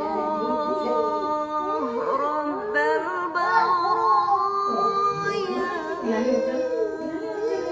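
Singing in a high voice over music, with held notes that step from one pitch to the next.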